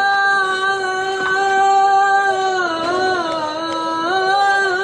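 A muezzin's voice chanting the adhan, the Islamic call to prayer. He holds one long, ornamented note that dips in pitch about two-thirds of the way through and then rises back.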